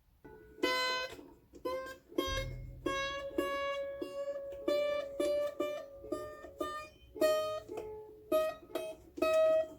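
Mandolin string plucked over and over while being tuned up, single ringing notes, the main pitch creeping upward as the string is tightened.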